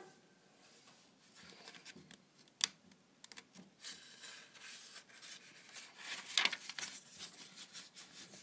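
Paper pages of an instruction booklet rustling and crinkling as a hand presses them flat and turns a page. There is a sharp tick a little after two and a half seconds, and the loudest crackle comes about six and a half seconds in.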